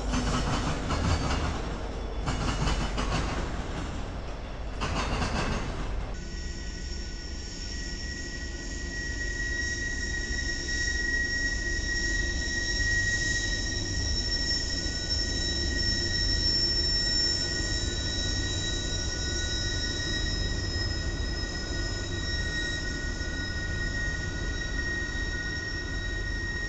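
Freight train rolling past with a rumble of wheels that swells and fades about every two seconds. Then, about six seconds in, a steady high-pitched squeal of steel wheel flanges on the rail as a Norfolk Southern freight train rounds a sharp curve: several squealing pitches held together over a low rumble.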